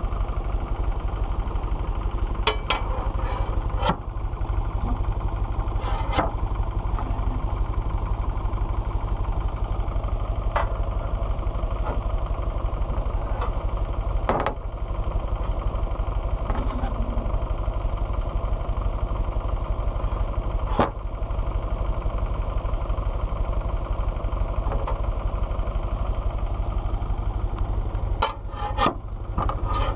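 Fordson Power Major tractor engine running steadily, driving a rack sawmill through its PTO shaft. Sharp knocks and clatters come every few seconds, with a cluster near the end.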